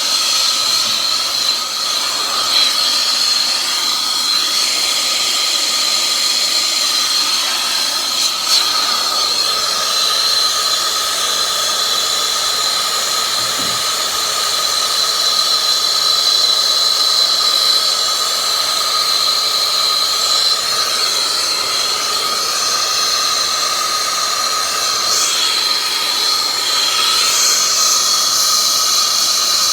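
Soldering torch burning steadily with a hissing flame and a high, steady whistling tone, heating a large copper pipe joint for sweating.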